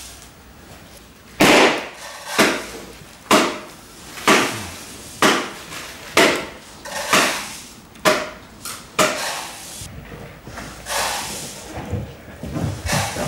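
A hand-held tube struck hard against something, nine blows in a steady rhythm of about one a second, each a sharp hit with a short ring-out. After that come softer, irregular knocks.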